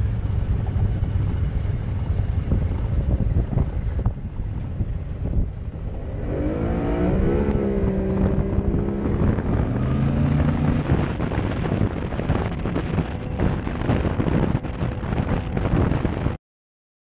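Boat motor running while underway, with wind and water noise. The motor's pitch wavers for a few seconds around the middle, and the sound cuts off suddenly near the end.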